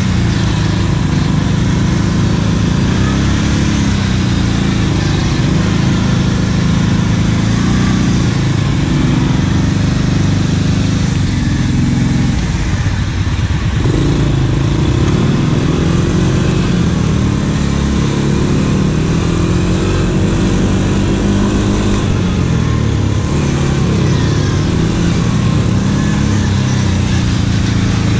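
ATV engine running under way, its pitch rising and falling as the throttle is worked, with a short let-off about twelve seconds in, over a steady rushing noise.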